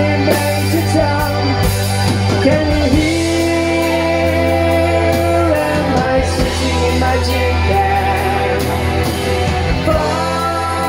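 Live rock band playing: electric bass, electric guitar and a male singer holding long, bending notes.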